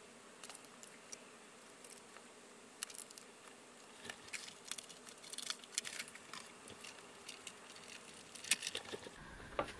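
Scattered light clicks and taps with soft rustling as small paper pieces and metal tweezers are handled on a cutting mat, the sharpest tap near the end.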